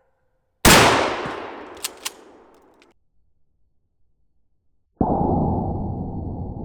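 A single shotgun blast of buckshot fired at a steel refrigerant tank, about half a second in, with a sharp crack that echoes and dies away over about two seconds, broken by two short sharp clicks. From about five seconds in, a steady, dull rushing noise.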